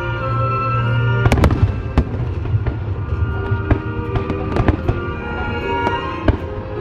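Fireworks exploding over music: a loud cluster of bangs a little over a second in, another bang at about two seconds, then many quicker, lighter cracks and pops.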